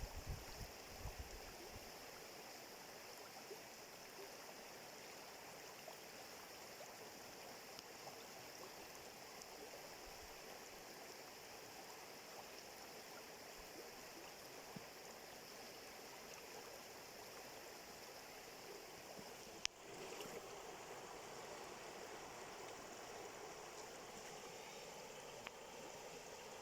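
Flowing water, a stream running steadily and faintly, with a single sharp click about twenty seconds in.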